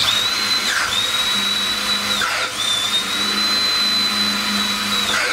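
Cordless drill running at high speed with a steady whine, drilling out the handguard screw hole in a FAL gas block with a 0.204-inch bit under light feed. The whine dips briefly twice, about a second and two and a half seconds in, then picks up again.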